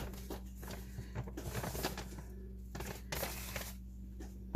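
Kitchen handling sounds of a measuring spoon and turmeric powder: light clicks and two short scraping rustles, over a steady low hum.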